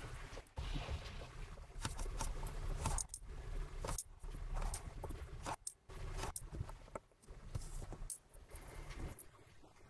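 Small watchmaker's tools and watch parts being handled: scattered light metallic clicks, taps and scrapes at irregular intervals over a low steady hum.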